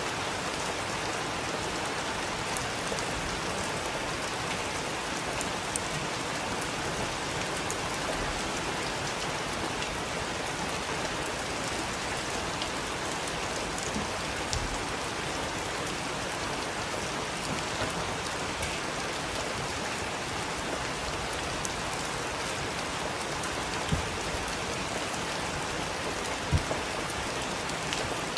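Heavy rain falling steadily, an even hiss with the patter of individual drops striking, and a couple of louder drop hits near the end.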